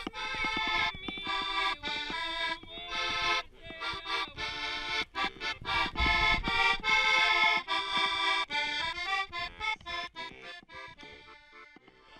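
Diatonic button accordion (heligonka) playing a lively tune in short, detached notes and chords, growing quieter over the last few seconds. There is a brief low thump about halfway through.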